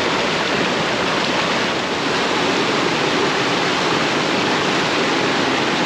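Rushing water of a waterfall and stream, a loud steady roar of falling and flowing water.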